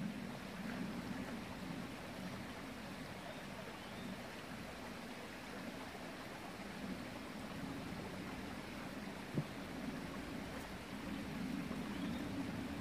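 Small forest brook flowing steadily under a footbridge, with one short sharp click about nine seconds in.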